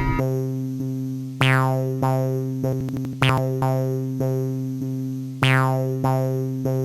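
Background music: a slow electronic track of struck keyboard-like synth notes over a held low tone, a new note sounding about every second and fading away.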